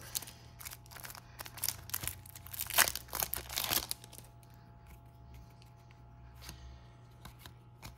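Foil wrapper of a trading card pack crinkling and crackling as it is handled in the first half. After that, quieter rustling and soft clicks as the cards are slid through the fingers.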